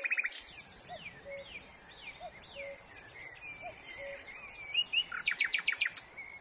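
Several birds singing: quick downward chirps and a fast trill near the end, with a low short call repeating in pairs every second or so.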